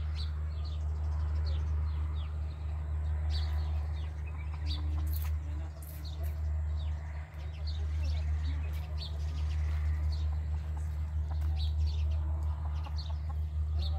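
Small birds chirping in quick, repeated short calls, with an occasional chicken cluck, over a steady low rumble.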